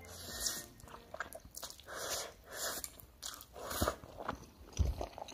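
A person chewing sticky tomato-flavoured instant noodles close to the microphone: a run of short chewing noises, about two a second.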